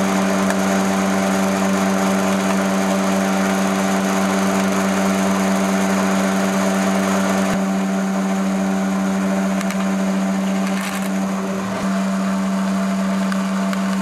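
Bench drill press motor running with a steady hum while a twist bit bores through a steel knife blade, cutting curled steel chips.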